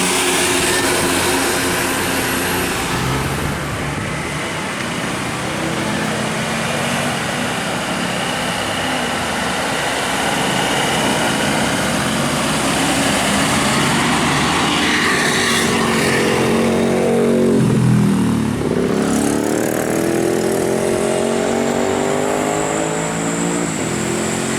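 Road traffic with large vehicles' engines running past. About three-quarters of the way through, one engine's pitch dips and then climbs steadily as it accelerates away.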